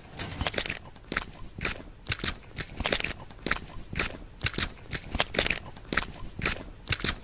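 Footsteps crunching and scuffing on a gritty path, an irregular run of short steps several times a second.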